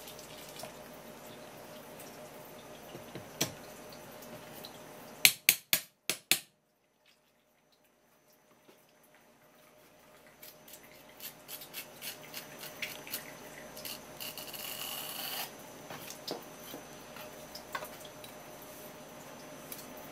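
Kitchen handling sounds at a wooden cutting board during eel preparation. About five seconds in there is a quick run of about five sharp knocks, then a short dead silence. After that come soft scattered clicks and wet handling noises, with a brief hiss near the three-quarter mark.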